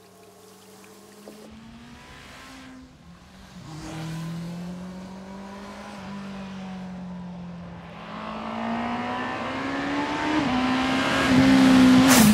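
Honda CBR650R motorbike's inline-four engine revving, its note rising and falling through the gears as it approaches. It gets steadily louder and is loudest as the bike passes close near the end.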